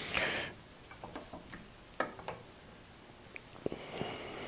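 Faint, scattered light ticks and clicks from a wooden blank mounted between lathe centers as it is turned by hand to find its balance point, with a sharper click a little after halfway. A short soft hiss at the very start.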